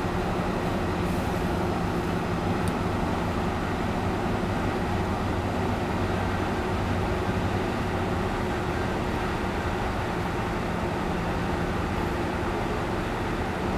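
Steady cabin noise of a BMW 5 Series cruising at highway speed: a low engine hum under road and tyre noise.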